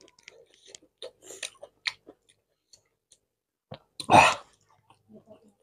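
Close-miked eating with the hands: soft chewing and lip smacks, then a loud mouth noise lasting about half a second, about four seconds in, as a handful of rice goes into the mouth.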